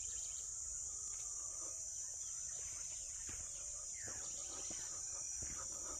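Insects keeping up a steady high-pitched drone, over a low rumble and a few faint chirps.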